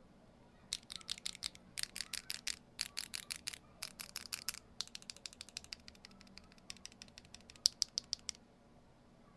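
Typing on a mechanical keyboard fitted with Akko Rosewood switches: bursts of quick key strokes, with a faster, denser run near the middle, stopping about a second before the end.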